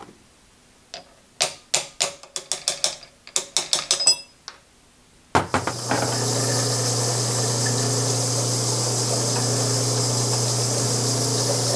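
A quick run of sharp metallic clicks and knocks as the pulley ring is taken off the lathe chuck, then, about five seconds in, a drill press starts running steadily with a low hum and a high hiss as its bit enlarges the screw holes in the ring.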